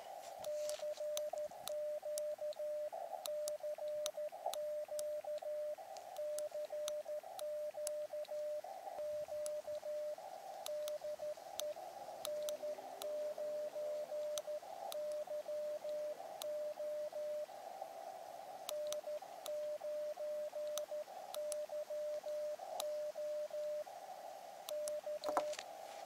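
Morse code (CW) from an Elecraft KX2 transceiver: a single pitched tone keyed on and off in dots and dashes, with narrow-filtered band hiss in the gaps and faint clicks at the key-downs.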